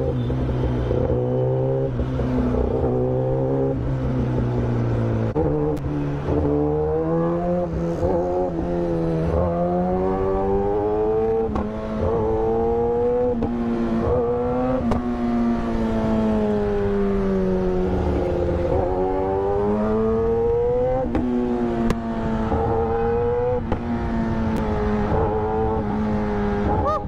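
Kawasaki ZX10R's loud inline-four engine under way, running steadily for about five seconds, then rising and falling in pitch again and again as it accelerates and shifts through the gears.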